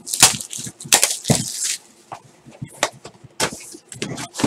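Plastic shrink wrap on a Topps Finest trading-card box crinkling and tearing as it is stripped off, in a quick run of loud crackles. A few quieter crackles and rustles near the end as the cardboard box is opened.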